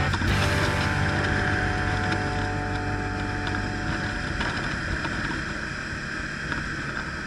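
Motorcycle engine running at a steady cruise, heard through an action camera in its case, with wind rushing over the microphone. The sound gets gradually quieter through the second half.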